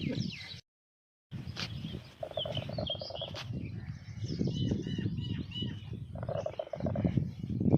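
Small birds chirping in short repeated tweets, with two held buzzy calls, over a constant low rumbling noise. The sound cuts out completely for under a second near the start.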